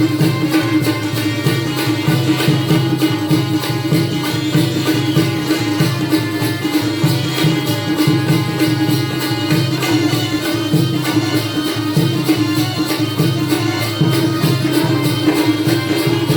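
Instrumental Jakhadi folk dance music: a hand drum keeps a rhythm under a fast, even beat of jingling cymbals, over a steady held tone.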